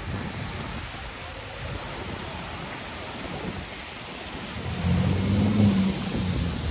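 City street traffic on wet roads: a steady wash of passing cars and tyre noise. About two-thirds of the way through, a vehicle's engine hum swells close by for a second or so.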